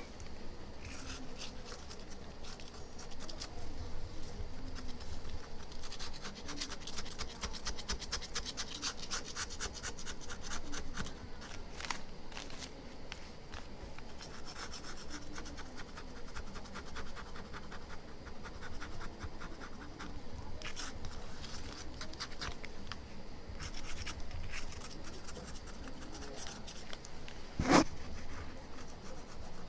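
Plastic knife scraping old glue off an iPhone 6 Plus LCD in rapid short strokes. A sharp click sounds near the end.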